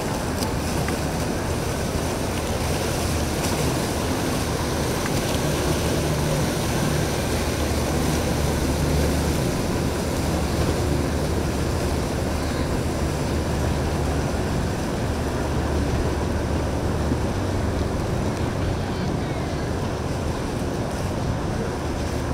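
Motor boats cruising past at low speed: a steady low engine rumble that grows louder for a few seconds in the middle, over the wash of water and wind noise on the microphone.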